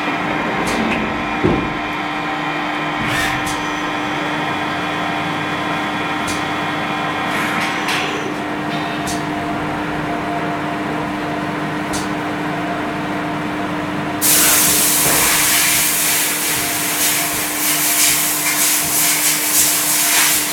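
Hyundai-Kia SKT21 CNC turning lathe running a machining cycle on a 60 HRC hardened workpiece: a steady machine hum and whine, with a few sharp knocks and clicks in the first eight seconds. About 14 seconds in, a loud steady spraying hiss starts abruptly and carries on.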